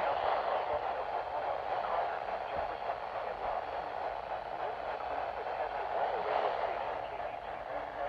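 Midland weather alert radio's small speaker playing a NOAA Weather Radio broadcast: a steady hiss of static with a muffled voice faintly under it.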